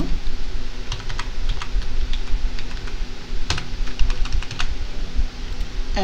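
Irregular clicks of a computer mouse and keyboard, over a steady low hum; the sharpest click comes about three and a half seconds in.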